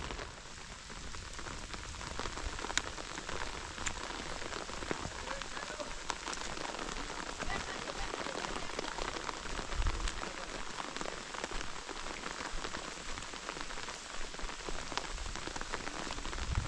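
Rain falling steadily on a surface, with many separate drop hits ticking through the steady hiss.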